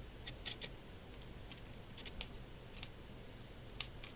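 Faint, irregular small clicks and ticks of a screwdriver working tiny screws out of a laptop's internal battery mounting, with one sharper click near the end.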